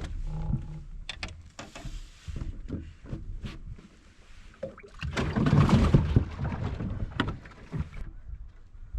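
A bass being landed into a boat: scattered knocks and clatter of handling, with a loud rush of noise about five seconds in.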